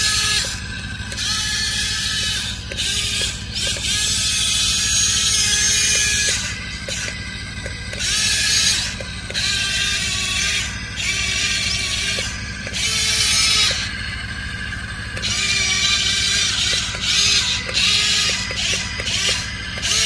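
RC excavator's electric motors and gearboxes whirring in repeated start-stop bursts, each a second or two long, as the boom and arm move.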